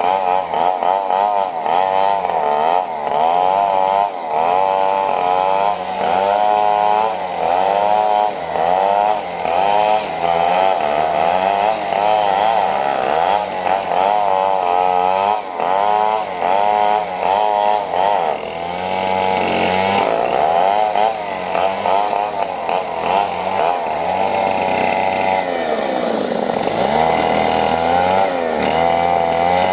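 Two small engines revving up and down over and over, their pitches overlapping and sweeping about once a second, with steadier running near the end.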